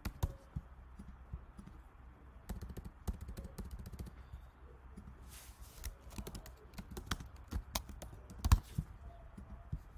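Typing on a computer keyboard: irregular key clicks as text is entered, with one sharper click near the end.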